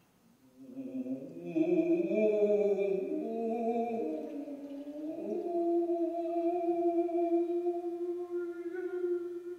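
Contemporary music for voice and bowed double bass: several long, overlapping tones that slide slowly in pitch, rising out of silence about half a second in, then settling into one long held tone.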